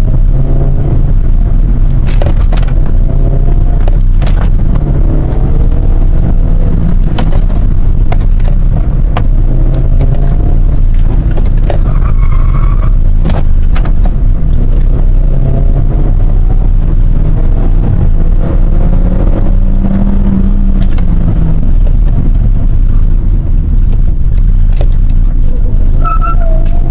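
Suzuki Swift's 1.3-litre M13A four-cylinder engine heard from inside the cabin, revving up and falling back again and again as the car is driven hard through a cone slalom, over a heavy low rumble with scattered knocks.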